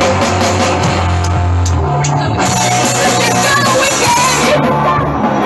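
A band playing live, amplified, with women singing into microphones. The bass note moves up about two seconds in.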